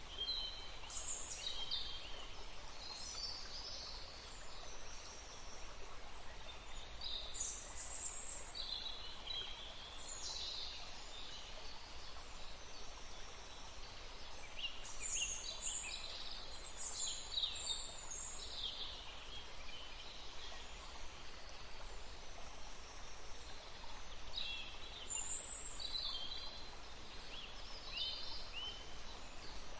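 Songbirds chirping and singing in scattered bunches over a steady rush of flowing water.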